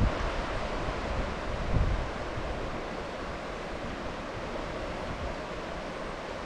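Wind blowing across the microphone: heavy low buffeting for about the first two seconds, then a steady rushing.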